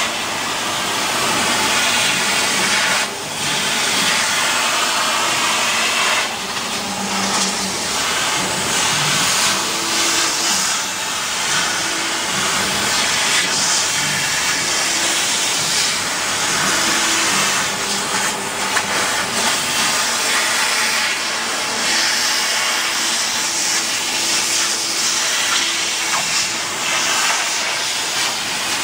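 CO2 laser cutting machine at work cutting fabric: a steady, loud hiss of blowing air, with short low hums coming and going as the cutting head moves.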